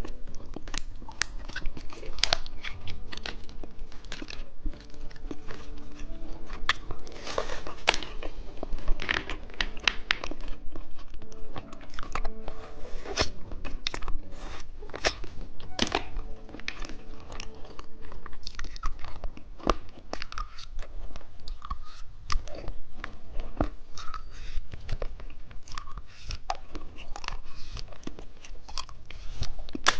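Close-up crunching and chewing of hard candy, many crisp crunches throughout.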